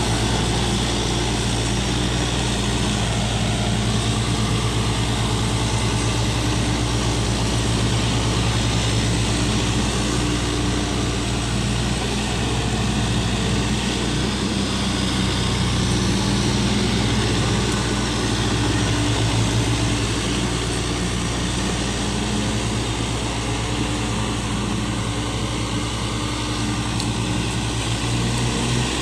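Mini excavator's diesel engine running steadily, a low, even drone with no break.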